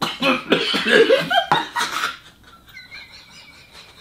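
A man coughing several times behind his hand, right after swallowing the liquid; the coughs fill the first two seconds, then die down to faint sounds.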